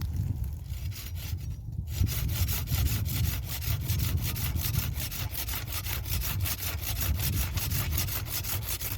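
Hand saw cutting through wood in fast, even back-and-forth rasping strokes, starting about two seconds in and stopping near the end.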